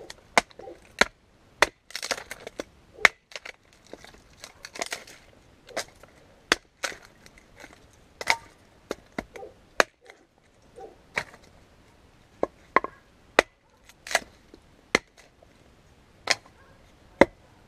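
Small camping hatchet splitting sticks of kindling on a wooden chopping block: a run of sharp chops and cracks of wood splitting, spaced unevenly at about one to two a second.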